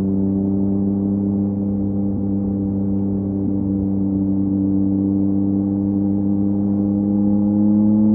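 2023 Yamaha MT-09's three-cylinder engine through a LeoVince LV Race exhaust, holding a steady cruising note, the pitch rising slightly near the end.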